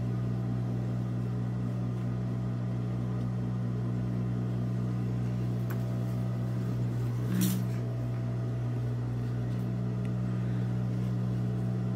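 Steady low electric hum, with a short rustle of fabric being handled about seven seconds in.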